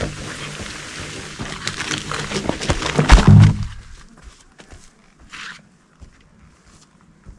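A spruce tree cracking and falling, its branches rushing through the air and crashing to the ground with a heavy thud a little after three seconds in.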